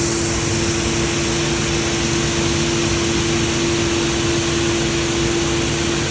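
An engine-driven machine running steadily at a constant speed, a continuous hum over a loud rushing noise.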